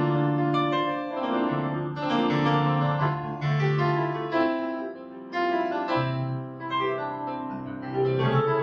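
Korg Pa700 arranger keyboard playing a piano-type factory sound: slow, sustained chords over held bass notes, taken straight from the keyboard's output with no EQ.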